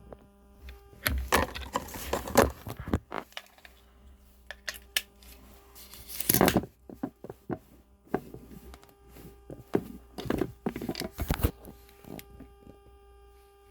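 Handling noises from a plastic plug adapter and its packaging: clicks, knocks and short rustles in clusters about a second in, around six seconds and again around ten to eleven seconds, over a faint steady hum.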